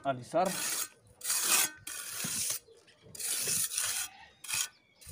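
Pointed mason's trowel scraping across wet cement-and-sand mortar in about five strokes with short pauses between them. This is the final smoothing of the freshly placed surface.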